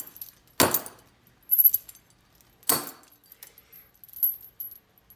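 Steel chain jangling and clinking against welded metal as the piece is moved, in a few short rattles, the loudest about half a second in and just under three seconds in.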